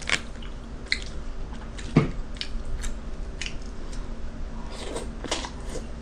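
Close-miked eating of jjajangmyeon with wooden chopsticks from a handheld bowl: scattered short clicks of chopsticks and bowl, mixed with wet chewing and mouth sounds.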